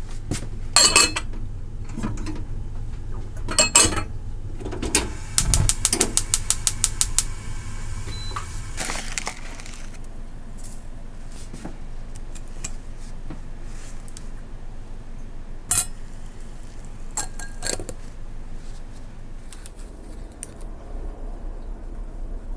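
Tea-making handling sounds: scattered clinks and knocks of a white enamel teapot, its lid and a glass cup. A quick even run of about a dozen clicks comes a few seconds in. Near the end, tea starts pouring from the teapot into the glass.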